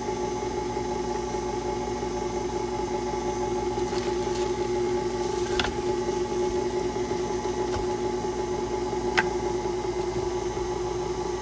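KitchenAid stand mixer running on low speed, mixing cheesecake filling: a steady motor hum. Two short clicks come about five and a half seconds in and about nine seconds in.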